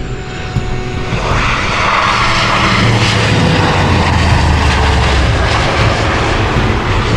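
Four-engine turboprop transport aircraft flying past low: engine and propeller noise that swells about a second in and then holds loud and steady.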